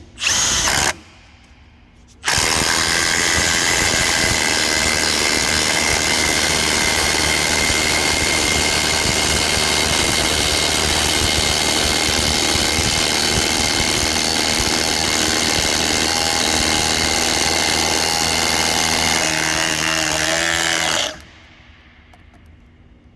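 Milwaukee M18 Fuel Gen 4 impact driver on a 6 amp-hour battery, driving a 1/2-inch lag bolt into a pre-drilled block of dense 4x4 wood. A short burst in the first second, a brief pause, then continuous impacting for about nineteen seconds that stops abruptly once the bolt is driven.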